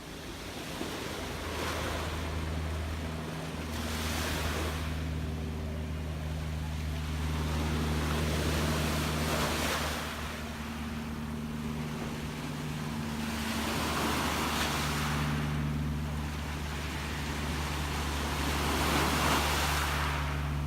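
Gentle ocean waves washing in and receding, swelling every few seconds, over a steady low hum.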